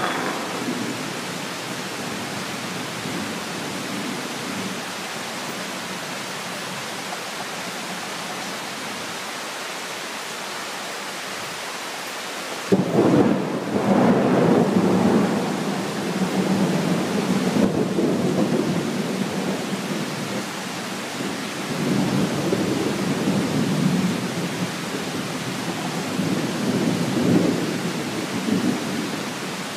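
Steady heavy rain of a tropical thunderstorm, with a sudden thunderclap about halfway through that rolls on as rumbling for several seconds, and more rumbles of thunder near the end.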